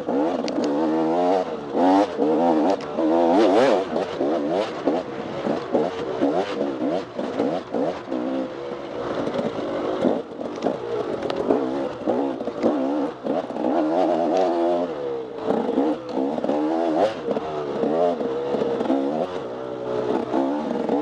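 Dirt bike engine ridden hard off-road, its revs rising and falling over and over as the throttle is worked, with scattered knocks and clatter from the bike over rough ground.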